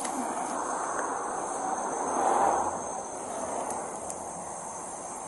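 Steady high-pitched chorus of night insects, with a soft rushing noise that swells and fades about halfway through.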